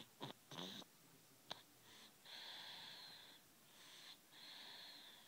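Wheezy snoring of a sleeper: two short pitched snorts at the start, then slow, hissing, whistly breaths about a second long each. There is a single sharp click about a second and a half in.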